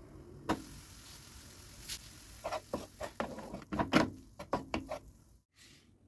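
Instant noodles and sausage slices simmering in a nonstick pan with a soft sizzle, then a wooden spatula stirring them, a quick run of taps and scrapes against the pan lasting a couple of seconds.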